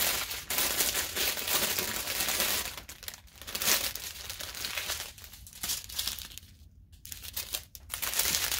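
Small plastic zip-top bags of diamond-painting drills crinkling and rustling as they are picked up and handled, in stretches broken by a few brief pauses.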